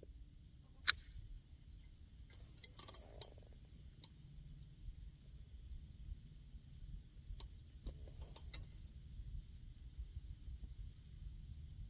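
Handling clicks and clacks from a Glock 19 in a CAA MCK conversion kit as a misfired round is cleared: one sharp metallic clack about a second in, then scattered lighter clicks and rattles. The misfire is taken for a light primer strike.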